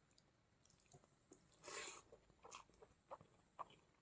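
Faint mouth sounds of a person eating: scattered soft clicks and chewing, with one louder short noisy sound just under two seconds in.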